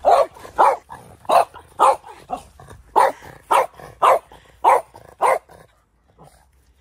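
A French bulldog barking about ten times, roughly two barks a second, then stopping about five seconds in. It is a guard dog barking at a stranger in its yard.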